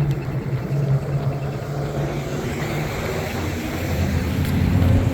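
Road traffic: car engines running and vehicles driving past, swelling louder near the end.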